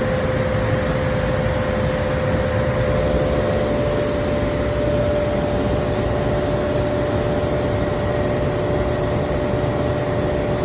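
Commercial HVAC equipment running: a steady rushing whirr with a constant hum in it, and a second, lower hum that comes in about halfway through.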